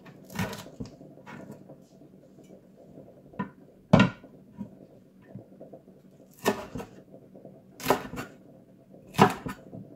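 Kitchen cleaver chopping spring onions on a wooden cutting board: separate sharp knocks of the blade hitting the board, spaced a second or more apart, the loudest about four seconds in.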